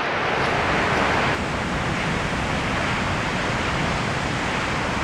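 Heavy storm surf breaking: a steady roar of churning whitewater, easing slightly after about a second and a half.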